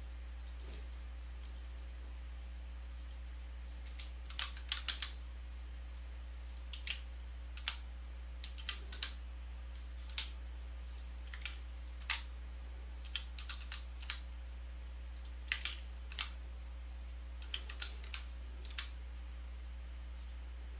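Computer keyboard typing: sparse, irregular keystroke clicks that begin about four seconds in, over a steady low electrical hum.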